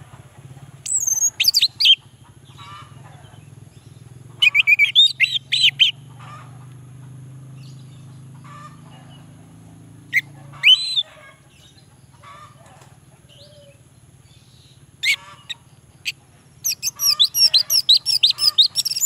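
Male orange-headed thrush singing in short bursts of fast, varied whistled notes, with the longest and densest run near the end.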